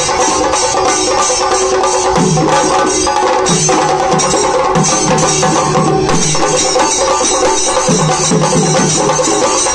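A group of Kerala chenda drums beaten together with sticks in a fast, dense, continuous rhythm, a chenda melam ensemble in full flow. A steady ringing sits underneath the drumming.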